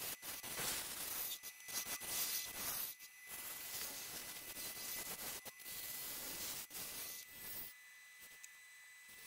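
Turning tool scraping and cutting into a spinning pink ivory bowl on a wood lathe: a hissing scrape of shavings coming off, broken by several brief pauses as the tool lifts, then falling quieter near the end.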